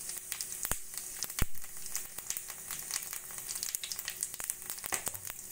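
Whole cumin seeds and dried red chillies sizzling in hot oil and ghee in a metal kadai, with a steady hiss and many small crackling pops, the loudest about a second and a half in. This is the tempering, with the spices crackling as they fry.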